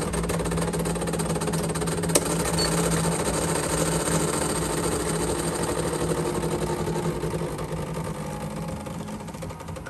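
Decent DE1 espresso machine's pump running with a steady hum, pushing water through the coffee puck straight up to 9 bar with no pre-infusion, at the start of the extraction. A single sharp click comes about two seconds in.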